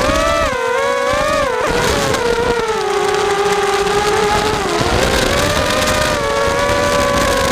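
FPV quadcopter's brushless motors and propellers whining, the pitch rising and falling with throttle.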